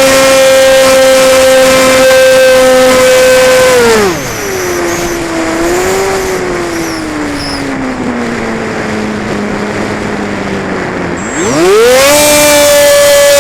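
Cessna 185's piston engine and propeller running steadily at high power. About four seconds in the revs drop sharply and sag lower for several seconds, then rise quickly back to full, steady power near the end.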